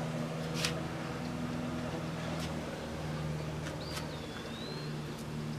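Steady low mechanical hum with a few faint clicks, and one short whistled chirp about four seconds in.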